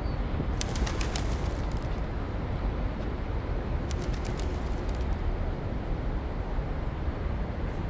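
Steady low rumble, with two short runs of rapid, sharp clicks: one about half a second in, the other about four seconds in.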